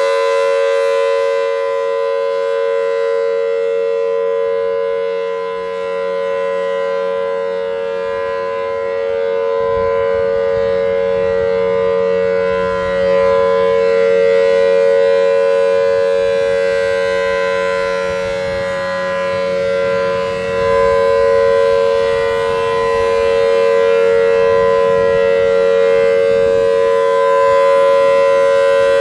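Federal Signal Thunderbolt 1000T blower-driven outdoor warning siren sounding a steady Full Alert tone, holding one pitch while its loudness slowly swells and fades as the rotating head turns, with a low rumble underneath in the second half.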